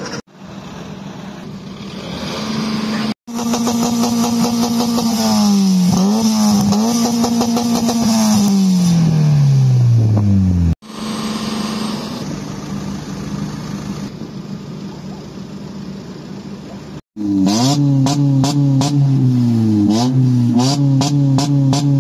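Car engines heard in several short clips cut together: an engine note holds steady, dips twice, then falls away as the car pulls off, and after a cut another engine runs and revs with a quick regular ticking over it.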